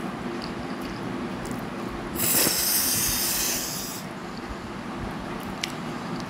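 A loud slurp of noodles drawn into the mouth, a hissing rush lasting about two seconds midway, with faint wet mouth clicks from chewing before and after.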